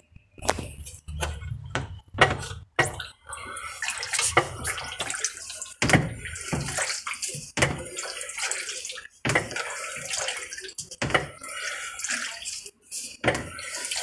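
Irregular scraping and rubbing of plastic, with some sharp knocks, as the washing machine's plastic tub and tub ring are handled. This is the tub assembly the repairman judges faulty: misaligned, so it strikes the panel and is scratched.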